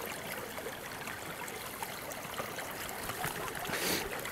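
Water trickling steadily in an open hole in the ice at a beaver dam, with a brief splash about four seconds in as a hand reaches into the icy water.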